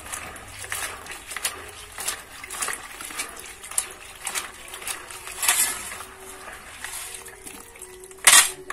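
Hands swishing and squeezing grasshoppers in water in a plastic basin as they are washed: repeated sloshing and splashing, with one louder splash near the end.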